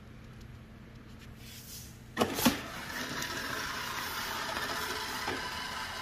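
iRobot Roomba i7+ robot vacuum starting a cleaning run: two sharp clunks about two seconds in, then its vacuum motor and brushes running steadily as it backs out of its Clean Base dock.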